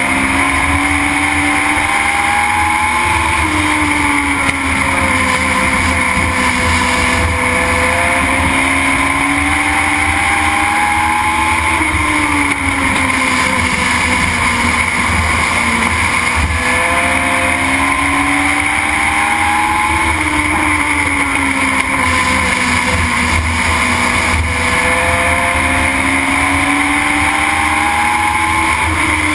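Legend car's Yamaha motorcycle engine heard from inside the cockpit at racing speed, its pitch climbing as it accelerates and dropping as the driver lifts, over and over about every eight seconds as the car laps the oval, with steady road and wind noise underneath.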